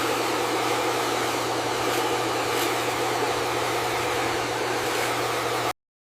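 Steady running motor: a constant low hum under an even rushing noise, which cuts off abruptly near the end.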